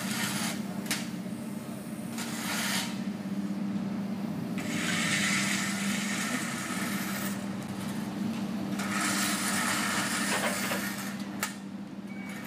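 Construction machinery nearby: a steady low hum with repeated bursts of harsh rasping noise, each lasting from under a second to a few seconds and starting and stopping abruptly.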